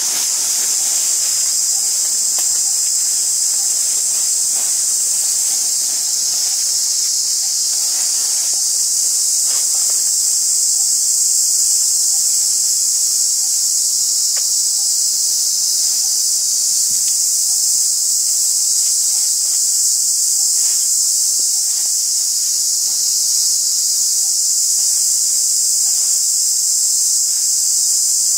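Steady, high-pitched drone of a dense insect chorus, unbroken throughout, with a few faint ticks in the first ten seconds.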